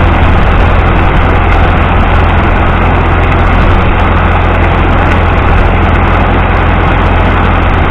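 A loud engine running steadily, with a constant low rumble and no change in speed.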